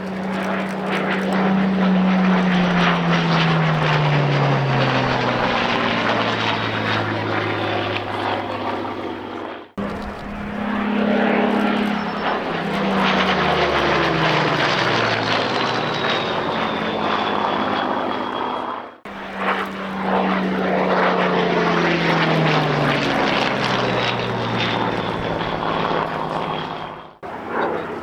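Second World War piston-engined fighters flying past, their propeller engine note dropping in pitch as each one passes. Three such passes are heard, each ending in an abrupt cut, about a third and two thirds of the way through.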